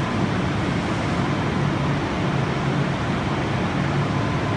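Electric overhead crane's drive motors and gearing running with a steady mechanical hum as the crane travels, with a faint whine joining near the end.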